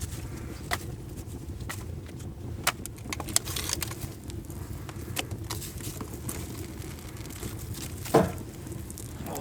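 Sharp snaps and cracks of wood, about one a second, over a steady low rumble, with a duller, louder knock about eight seconds in.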